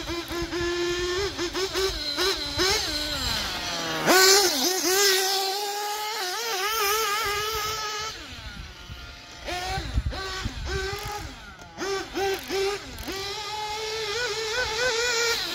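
A nitro RC car's Dynamite Platinum 21XP .21 engine on an OS 2050 tuned pipe, revving up and down as the car is driven around the track. Its high, buzzing note climbs on throttle and falls away off throttle, and is loudest in a sudden surge about four seconds in. The owner judges the engine to be feeling pretty good.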